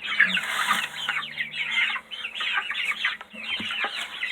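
A flock of chickens clucking, many short calls overlapping without a break.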